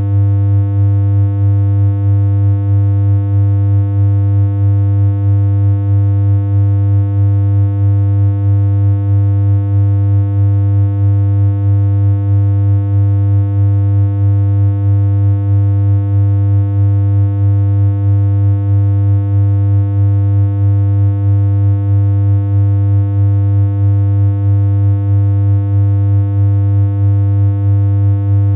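Steady synthesizer hum: one low, unchanging pitch with a stack of buzzy overtones, held without a break.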